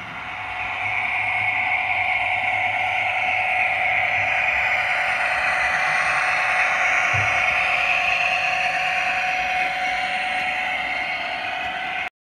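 OO gauge model Class 66 diesel locomotive running past with a rake of cement wagons: a steady motor whine and running noise of wheels on the track, swelling over the first second and cutting off abruptly near the end.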